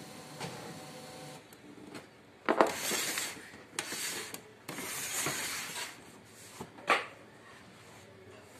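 Hands handling a laser printer: rubbing and scraping in three bursts, each about a second long, starting two and a half seconds in, then a single sharp click near the end.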